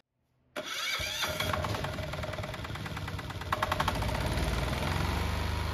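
Hatz fiPMG permanent-magnet diesel DC generator starting on a remote command: the engine cranks and fires with rapid regular knocking from about half a second in, then settles into a steady run near the end.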